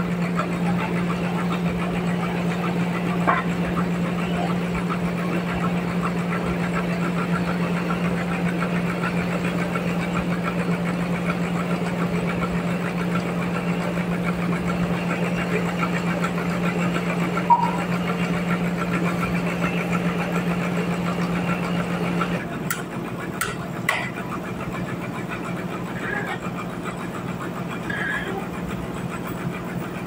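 Sawmill machinery running steadily without cutting, a constant mechanical hum. About 22 seconds in it gives way to a quieter background with a few sharp knocks of timber being handled.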